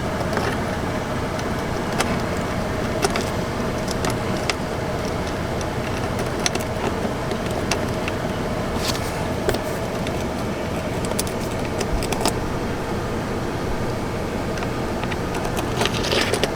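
Small metal clicks and taps of a phone-mount ball base being worked into the track of an aluminium dash rail mount, scattered over a steady hum.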